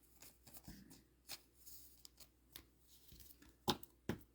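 Dragon Ball Z trading cards being handled and flicked through: faint slides and taps of card stock, with two sharper taps near the end.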